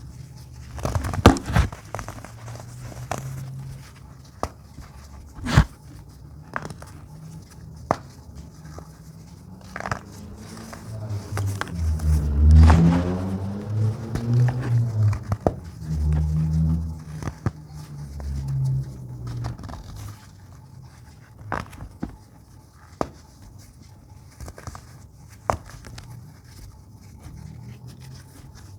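Dyed baking soda crumbling and being crushed: sharp, irregular crunches and crackles, with a stretch of deep, muffled thumps in the middle.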